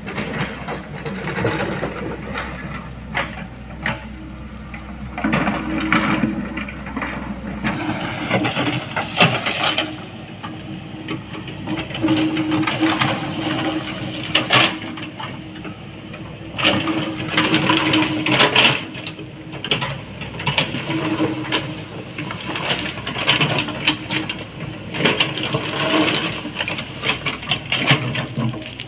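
Heavy earthmoving machine working stone: a steady diesel engine hum under frequent sharp clanks and knocks of rock and steel.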